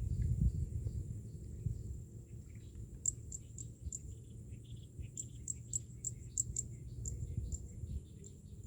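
Outdoor ambience: a steady low rumble under short, high chirps that repeat irregularly, several a second, thickest from about three seconds in.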